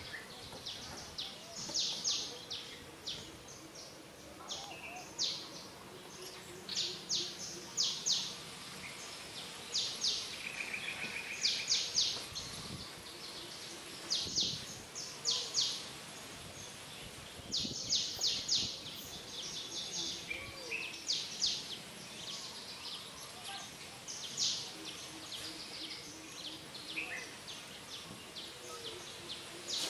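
Small birds chirping in the background, in short runs of several quick, high notes repeated every second or two, with a brief trill about ten seconds in, over a steady outdoor hiss.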